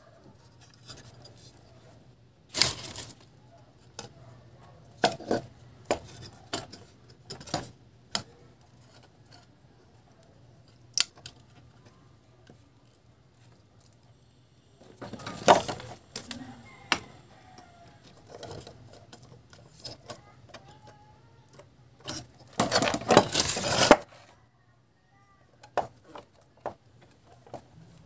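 Scattered metallic clicks and clinks from an aluminium amplifier chassis, a small transformer and wires being handled and fitted together by hand, with two longer noisy stretches of handling, about halfway and near the end.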